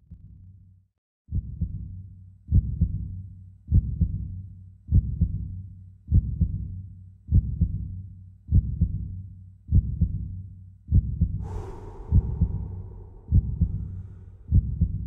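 Heartbeat sound effect: deep thumps repeating evenly about every 1.2 seconds. About eleven seconds in, a steady higher drone with a hiss joins under the beats.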